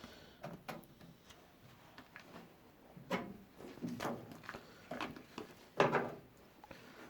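Sheet of paper being handled and worked by hand for a template: a series of irregular rustles and scrapes, a few louder ones about three, four and six seconds in.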